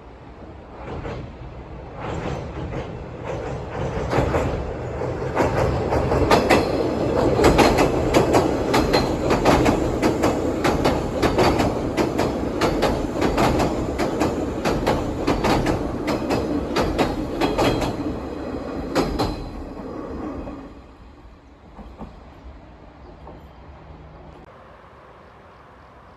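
Electric train passing close by, its wheels clacking rhythmically over the rail joints over a steady rumble. The clacking builds up, runs on for most of the time, and stops abruptly after about twenty seconds as the last car goes by, leaving a fading rumble.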